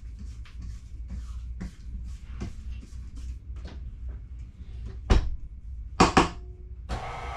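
A spatula scraping around the metal bowl of a KitchenAid stand mixer in short repeated strokes. About five seconds in there is a loud knock, then a double clank a second later as the mixer's tilt head is lowered. Just before the end the mixer motor starts with a steady whine.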